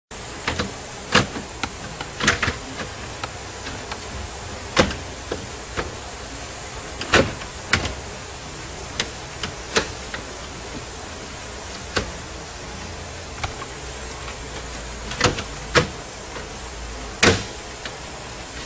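Plastic dashboard trim clicking and knocking as the instrument-panel trim plate is pressed back into the dash pad and its retainer clips snap into place. About a dozen sharp, separate clicks come at irregular intervals over a steady hiss.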